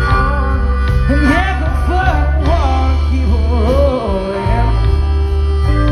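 Blues harp (diatonic harmonica) played hard into a vocal mic over a live electric blues band, with bent, wavering notes through the middle of the phrase over a steady bass line and electric guitar.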